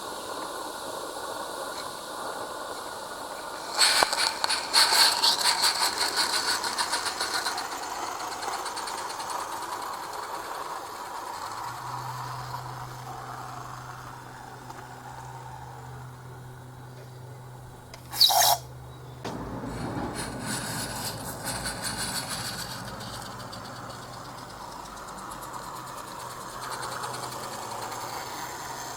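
Garden-scale model goods train running on the track, with rattling from the loco and wagons. A burst of fast clicking and rattling comes a few seconds in, and a steady low hum runs through the middle. A brief sharp high-pitched sound comes about two-thirds of the way through, followed by more rattling.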